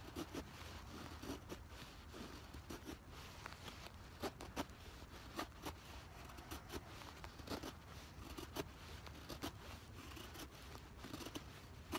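Knife blade shaving thin curls off a stick of dry split wood to make a feather stick: a run of short, faint scraping strokes, one every half second to second, a few sharper than the rest.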